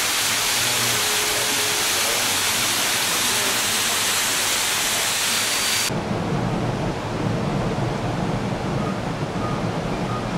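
Steady, hissing rush of a small waterfall splashing into a pond. About six seconds in it cuts off abruptly, giving way to a duller outdoor rumble with more low end.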